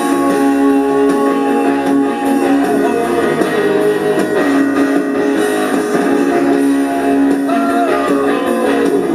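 Rock band playing an instrumental break with guitar, no singing. A lead line bends in pitch near the end.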